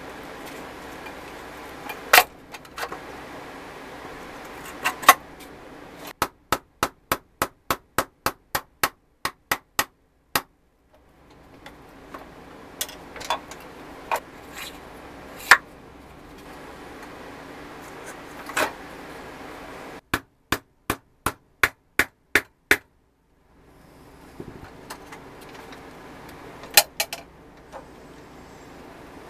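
Metal taps and knocks from assembling a pressed-steel Tonka toy forklift: single knocks as parts are handled, and twice a run of evenly spaced taps, about two or three a second, over a steady low workshop hum.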